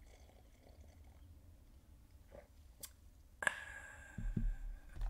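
Quiet sipping and swallowing from a mug, then a sudden knock about three and a half seconds in with a short fading ring, as of the mug being set down on the desk, followed by a few low thumps.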